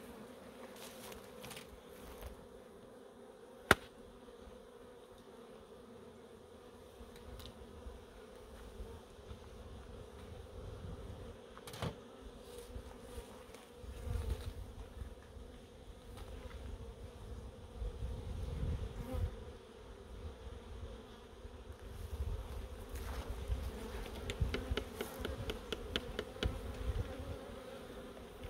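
Honeybee colony buzzing in a steady hum from an open hive. A single sharp click sounds about four seconds in, and there are scattered knocks and low rumbles later on.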